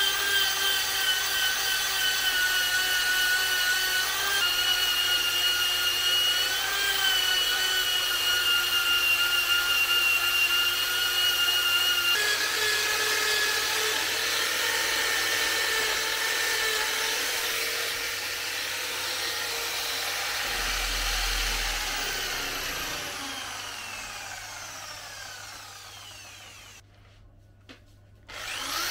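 Corded electric drill fitted with a wire wheel brush, running at speed and scouring a motorcycle swingarm. Near the end the motor is let off and spins down, its whine falling away.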